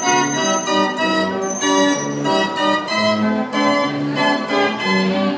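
Carousel organ music playing: a bouncy tune of short, organ-like notes.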